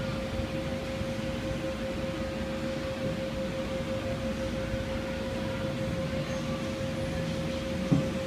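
Small electric kiddie carousel turning, its drive giving a steady single-pitched hum over a low rumble. A short knock comes near the end.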